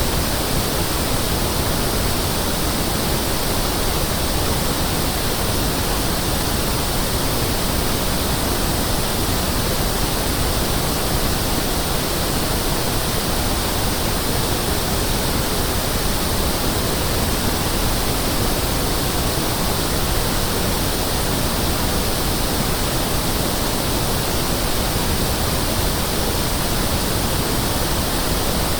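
Pink noise test signal: a steady, even hiss spread across all frequencies that holds one level throughout.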